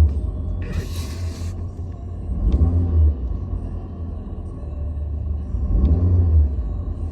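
Car engine running just after a hard start, its speed rising and falling about every three seconds. There is a brief hiss about a second in.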